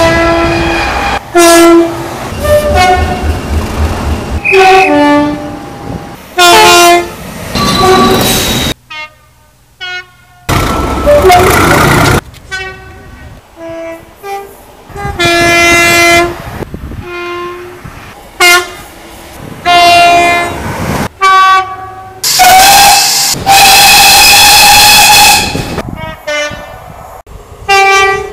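A string of British train horns in short clips cut one after another, many sounding two notes in turn. Twice, a longer horn sounds over the rush of a passing train.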